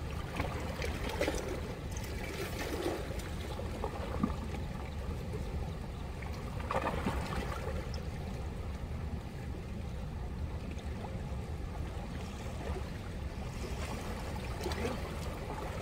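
A river running fast over rocks: a steady rushing with a deep rumble underneath, and a single click about four seconds in.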